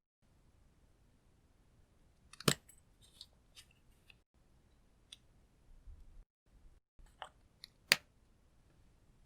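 Two sharp clicks, one about two and a half seconds in and one near the end, with scattered small crackles between them, from lipstick tubes and slime being handled.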